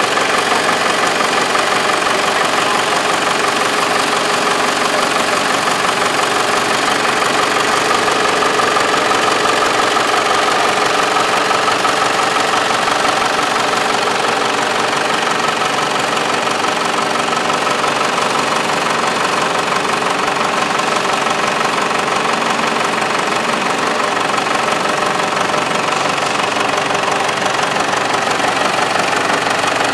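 Rat rod's Cummins diesel engine idling steadily.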